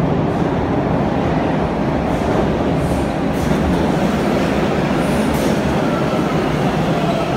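TTC subway train pulling into the station, a loud steady rumble of the cars running over the rails as it slows. A faint high whine comes in near the end as it brakes.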